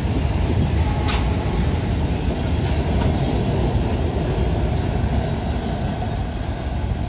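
Railway tank cars and boxcar-style equipment cars of a freight train rolling past on the track: a steady, heavy rumble of wheels on rails, with one sharp clank about a second in.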